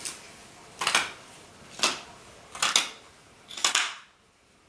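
Fabric scissors snipping through sequined dress fabric, four cuts about a second apart.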